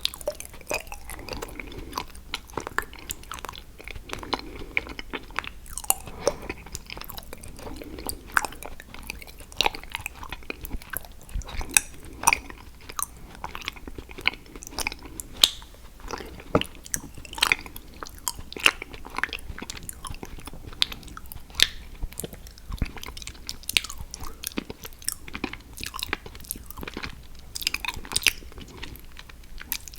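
Close-miked chewing and biting of hard chocolate, with many irregular crisp crunches and clicks from the mouth.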